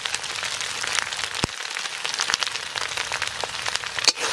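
Spice paste of ginger, garlic, green chilli and cumin frying in hot mustard oil, with red chilli powder freshly added: a steady sizzle full of small crackles, with a sharper pop about a second and a half in and another near the end.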